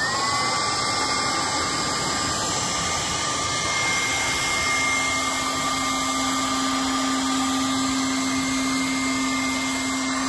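Small electric air pump switched on and inflating an inflatable car bed: a quick rising whine as the motor spins up, then a steady whirring hum of air blowing.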